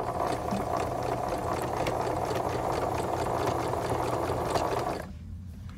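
Electric sewing machine running steadily, its needle stitching through layered fabric, then stopping about five seconds in.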